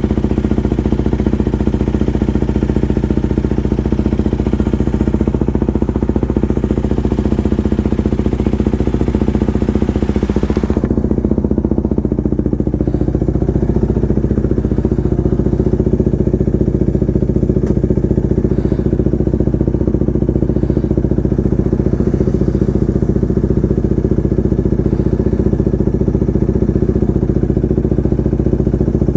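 KTM RC 250 single-cylinder motorcycle engine running at a steady, unchanging speed. A high hiss over it stops abruptly about eleven seconds in, leaving the engine note alone.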